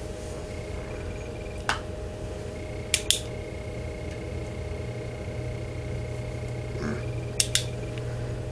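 Sharp clicks of a small switch or button being pressed: one single click, then two quick double clicks a few seconds apart. A steady low hum runs underneath, with a faint thin high whine through the middle.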